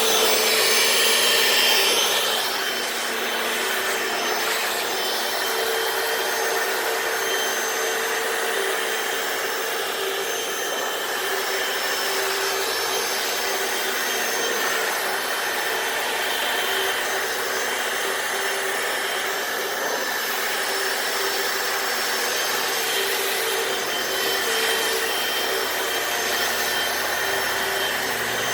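Hoover FloorMate wet floor cleaner running steadily as it scrubs a concrete garage floor: an even motor whine over a constant rushing noise, a little louder for the first two seconds.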